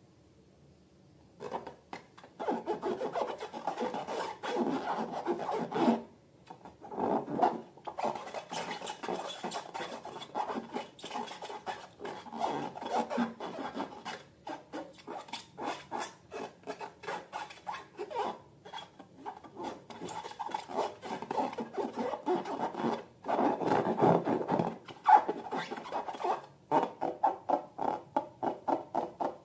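Slime being squished and kneaded by hand: a dense run of small sticky clicks and squelches, starting about a second and a half in and pausing briefly partway through.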